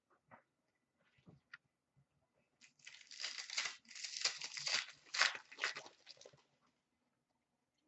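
Foil wrapper of a hockey trading-card pack being torn open and crinkled in the hands, in quick crackling bursts for about three and a half seconds, after a few faint taps of cards being handled.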